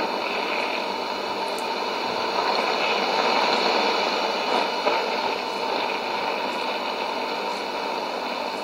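Sony ICF-2001D shortwave receiver hissing with static on 7330 kHz after the broadcast's last words, a steady band-limited rush with a faint steady whistle in it.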